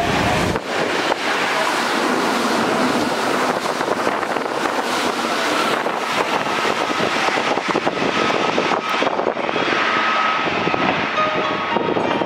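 Hankyu Kyoto Line electric train passing through the station at speed: a loud, steady rush of wheels on rail with rapid clatter. A thin steady whine comes in over it about halfway through.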